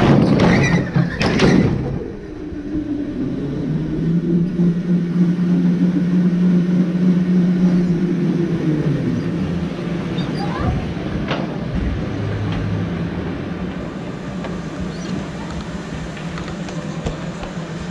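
Go-kart motor humming steadily as the kart drives, heard from on board, with knocks and rattles in the first couple of seconds. The steady hum fades about nine seconds in.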